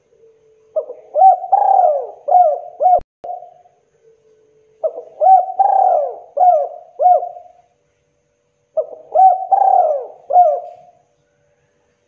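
Spotted dove cooing: three phrases of about five notes each, repeated roughly every four seconds.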